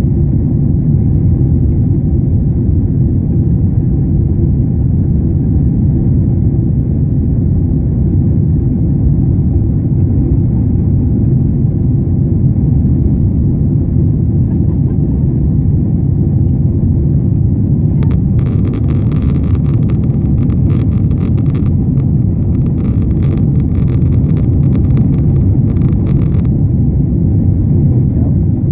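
Steady low rumble of a jet airliner's engines and airflow heard from inside the passenger cabin. About two-thirds of the way through, a spell of rapid clicking or rattling comes and goes for several seconds.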